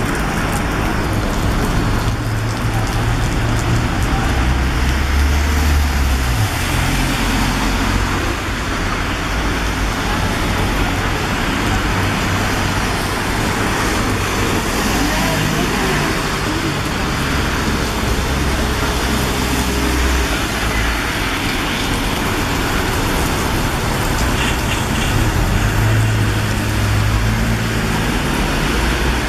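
Heavy rain falling steadily, mixed with city road traffic: vehicle engines rumbling as they pass, swelling and fading every few seconds.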